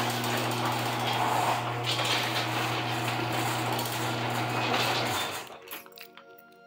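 Sectional garage door running along its steel overhead tracks on freshly replaced rollers, driven by its opener: a steady motor hum under a rough rolling noise, which stops about five seconds in.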